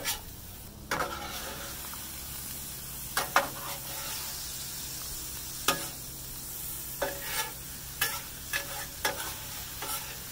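Vegetables and chicken sizzling on a Blackstone flat-top griddle, with metal spatulas scraping and clacking against the steel plate as the food is pushed together; about a dozen sharp scrapes stand out over the steady sizzle.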